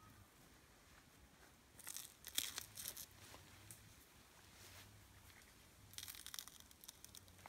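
Baby mountain gorilla tearing and chewing a fresh bamboo shoot: short crackling, tearing sounds in two bouts, about two seconds in and again about six seconds in.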